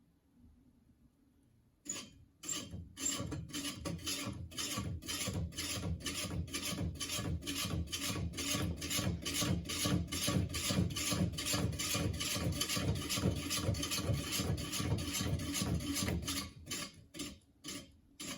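Principal 42-inch flush-mount ceiling fan turning with a bent blade, scraping once per turn in a steady rhythm: the strokes speed up to three or four a second, hold, then slow and stop near the end as the fan coasts down.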